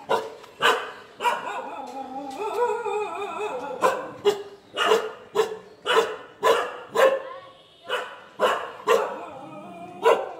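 A dog barking over and over in short sharp barks, roughly one every half second to a second, with a wavering drawn-out stretch about two seconds in.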